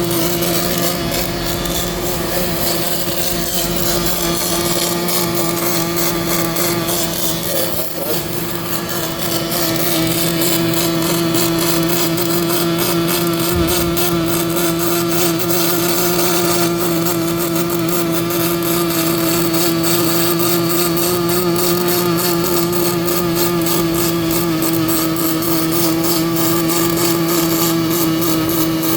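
MIG welding arc crackling steadily over a constant hum, with a brief dip about eight seconds in.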